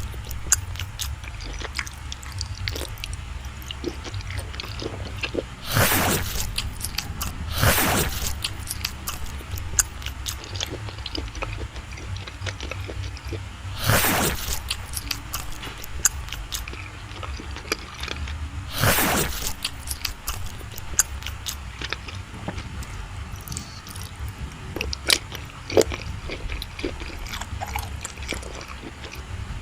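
Close-miked eating sounds: soft chewing and many small wet mouth clicks of someone eating creamy cake, with four louder short noises spread through, over a steady low hum.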